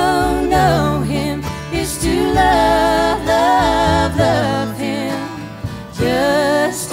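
Background song: a wavering sung melody over guitar and steady bass notes.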